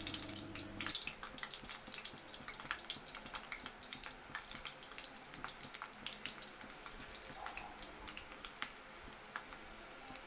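Onion pakoda batter deep-frying in hot oil: a steady crackling sizzle of many small pops, with a louder pop now and then. A low hum cuts off about a second in.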